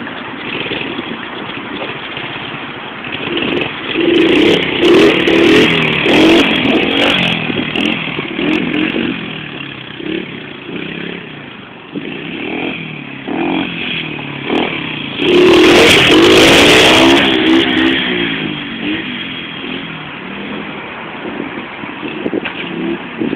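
A 110cc semi-automatic pit bike's small single-cylinder four-stroke engine revs and runs as the bike is ridden about. Its pitch rises and falls with the throttle, and it is loudest in two spells, the second about two-thirds of the way through.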